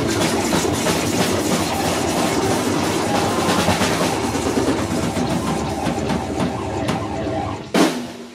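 Live rock band playing loud: electric guitars and a drum kit with cymbals in a dense, noisy wall of sound. Near the end comes one last hard hit, then the sound drops away sharply.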